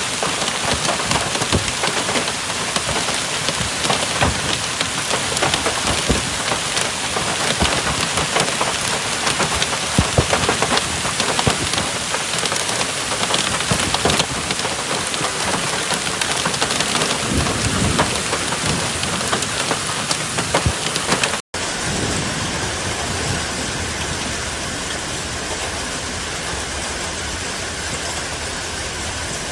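Heavy rain falling hard on a surface, a dense steady downpour full of sharp individual drop impacts. About two-thirds of the way through, the sound breaks off for an instant and resumes as a smoother, steadier downpour.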